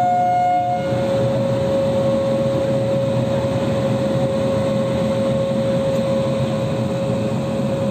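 WAP-7 electric locomotive moving slowly, its blowers running as a steady whine over a broad rushing hum. A second, higher tone stops about a second in.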